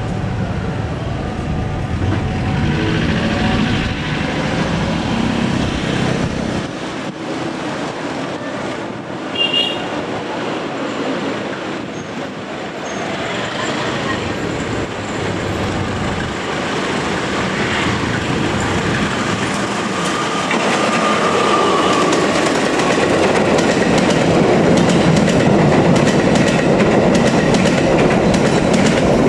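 Diesel-electric locomotive hauling a passenger train, approaching round a curve and passing close by. Its coaches clatter over the rail joints, getting louder towards the end.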